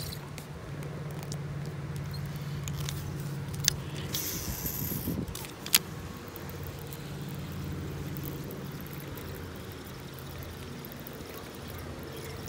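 A steady low motor hum runs throughout. A couple of sharp clicks and a brief hiss come between about four and six seconds in.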